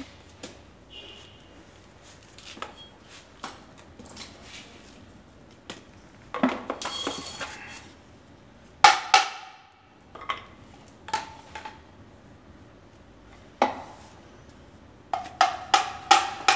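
Motorcycle front fork tubes clanking as the inner tube is worked in and out of the outer tube: sharp metal knocks with a short ring, irregularly spaced, the loudest about halfway through and a quick run of several near the end.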